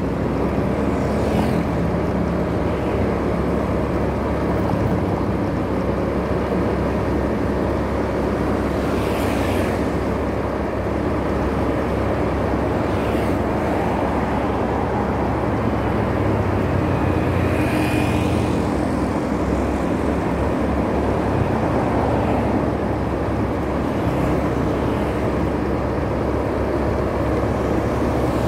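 Motorbike running at riding speed, a steady engine hum under road noise, with a few brief higher sounds from passing traffic.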